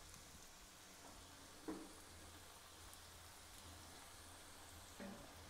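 Faint, steady sizzling of onion pakoda batter deep-frying in hot oil, with one brief faint sound about a second and a half in.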